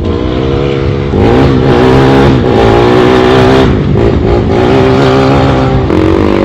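Quad (ATV) engine revving hard, its pitch climbing about a second in, then dropping and picking up again several times as the throttle is worked.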